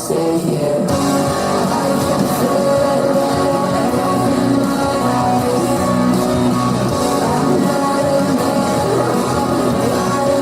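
Live band playing loud rock music, guitar and drums without singing.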